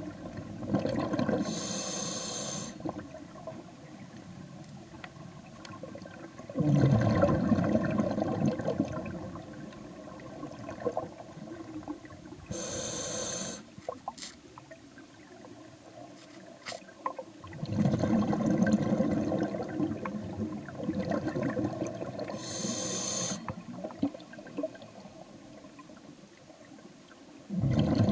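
A scuba diver breathing underwater through a regulator: a short hiss on each inhale, then a longer rush of exhaled bubbles, in a slow cycle of about one breath every ten seconds.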